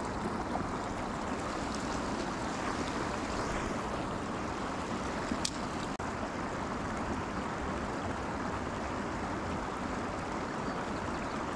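Steady rushing outdoor noise of wind and moving water at a riverbank, with one sharp click about five and a half seconds in.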